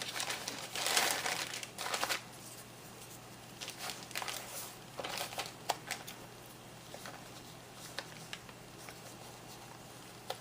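Paper and cardstock rustling and crinkling as a handmade photo folio is handled, loudest in the first two seconds, then scattered light rustles and clicks.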